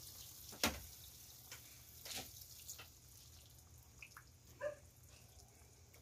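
Coconut milk poured from a plastic cup into a wok of simmering cuttlefish, a faint liquid trickle. A few short knocks come through it, the sharpest about half a second in.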